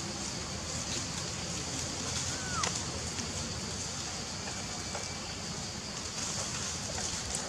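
Steady outdoor background hiss with an even high band above it, a few faint clicks, and one short falling squeak about two and a half seconds in.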